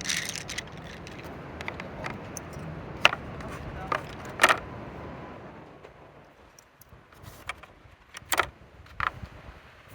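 Several sharp clicks and clinks of small hard objects being handled, the loudest around the middle, over a low rumble that fades out about halfway through.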